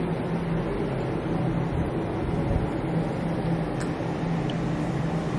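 Steady urban outdoor background noise, an even rumble with a low, constant hum under it.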